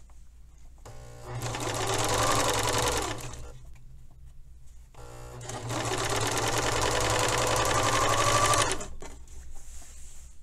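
Pfaff serger stitching a narrow hem in two runs of a few seconds each, each one winding up to speed at its start, with a pause of a second or two between them.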